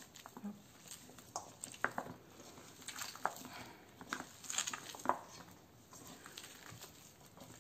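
Bare hands kneading and squeezing a sticky soap paste, softened with milk, in a stainless steel bowl: irregular soft squelches and small clicks, busiest in the first five seconds.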